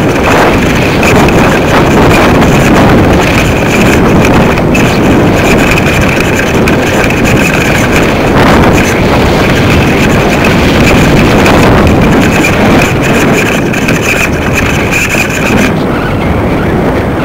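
Strong wind blowing across the microphone of a small camera lifted by a kite, a loud steady rushing with a faint high-pitched whine that drops away near the end.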